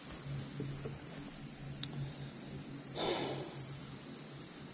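Steady high-pitched chorus of insects such as crickets or cicadas, with a faint low hum under it and a brief soft rustle about three seconds in.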